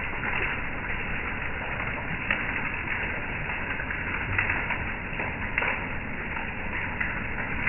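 Hail and heavy rain pelting a wooden deck and patio furniture: a steady hiss of falling rain with scattered sharp clicks and taps of hailstones striking, a few louder than the rest.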